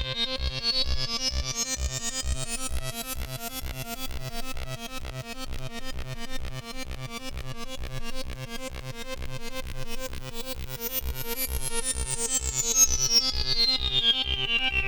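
Electronic dance music: a steady kick drum about twice a second under a busy synthesizer pattern, with a high synth sweep rising over the first few seconds and gliding back down near the end.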